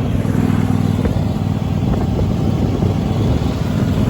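Cub Cadet lawn tractor's swapped-in 26 hp Briggs & Stratton V-twin engine running steadily as the tractor is driven slowly.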